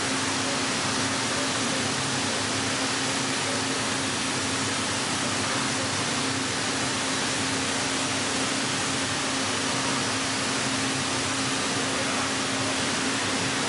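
Heller four-roll CNC plate rolling machine running while it bends a steel plate: a steady hum over an even hiss, unchanging throughout.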